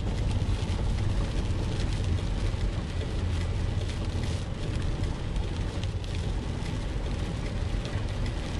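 Rain falling on a car's windscreen and body, many small ticks over an even hiss, heard from inside the cabin over the car's steady low rumble.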